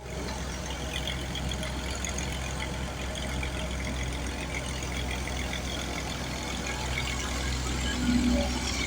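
Komatsu PC130 excavator's diesel engine idling steadily, with a low even hum.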